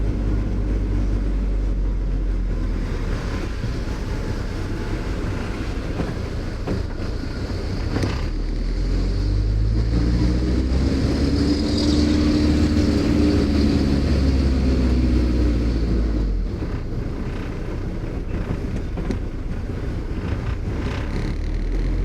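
Car engine and road rumble from a car being driven. The engine pitch rises about ten seconds in as it accelerates, holds, then eases off after about six seconds.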